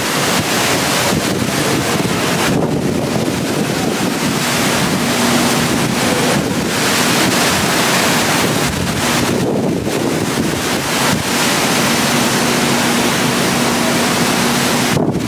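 Hurricane winds blowing hard in rising and falling gusts, buffeting the microphone. A faint steady low tone comes and goes in the background.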